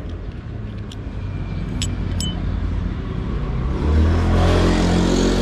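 A motor vehicle's engine approaching and passing close by, its rumble swelling loud about four seconds in. Two light metal clicks come from clutch lever parts being handled about two seconds in.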